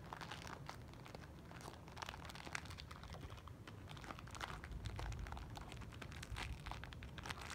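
Plastic toy wrapper crinkling as it is handled: a run of faint, irregular crackles.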